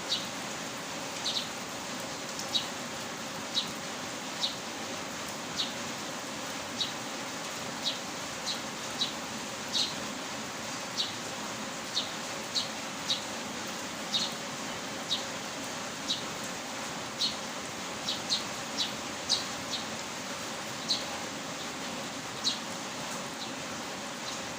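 Steady hiss of heavy rain, with short high-pitched chirps repeating irregularly, a little more than once a second.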